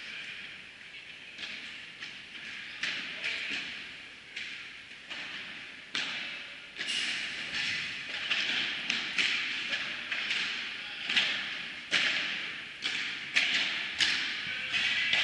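Padel rally: a padel ball being struck by rackets and bouncing on the court and walls, each hit a sharp crack with a hall echo. The hits come about once or twice a second and get louder and closer together from about six seconds in.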